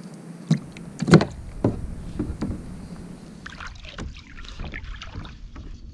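Five or so hollow knocks and bumps against a plastic sit-on-top kayak, the loudest about a second in. After that come softer scattered ticks and rustling.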